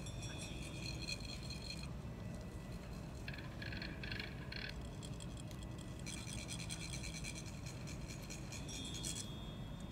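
Metal chak-pur funnels being rasped with a rod to trickle coloured sand onto a Tibetan sand mandala: a scratchy, rattling scrape in three stretches, over a steady low room hum.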